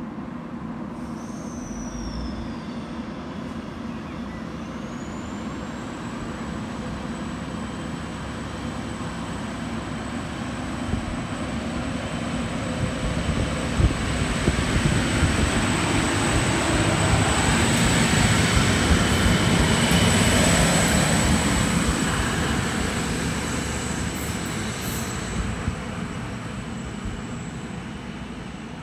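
Endeavour diesel railcar set pulling out and passing close by: the engine noise builds slowly to a peak a little past halfway, then fades as it moves away. A steady high-pitched whine starts a few seconds in and is held almost to the end.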